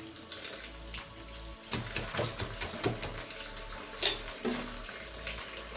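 Chapatis frying on a hot pan with a steady sizzling hiss, and a series of soft, irregular knocks and pats as they are handled and beaten, the loudest about four seconds in.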